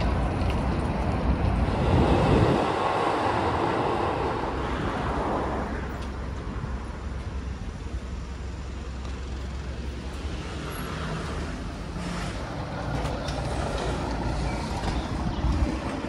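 Street traffic noise with a steady low rumble; a passing vehicle swells loudest about two to five seconds in.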